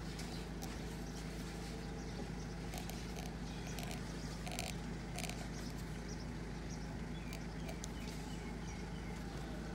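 Short scratchy strokes of a pointed engraving stylus cutting lines into the hardened lacquer of a lacquerware cup, a few louder ones around the middle, over a steady low hum.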